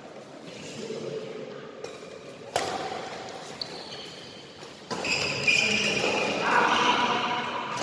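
Badminton rackets striking a shuttlecock in a sports hall, sharp echoing hits, the two loudest about two and a half and five seconds in. Short high squeaks of shoes on the court floor and players' voices come in the second half.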